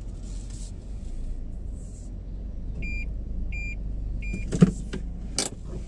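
Steady low hum inside the cabin of a running Toyota Vios, with three short electronic beeps from the car about 0.7 s apart around the middle, then two sharp clicks near the end.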